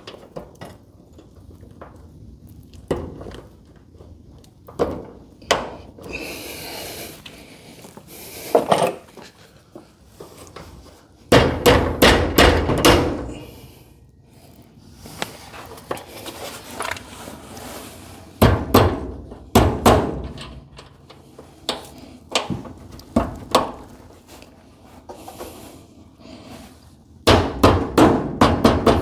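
Hammer blows knocking garage door hinge hardware into place: three bursts of rapid strikes, with scattered single knocks and clunks of handling between them.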